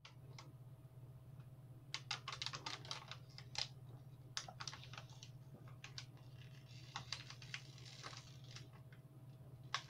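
Faint, irregular clicks and crinkles from a small plastic bottle being handled and tipped up to drink from, over a steady low hum.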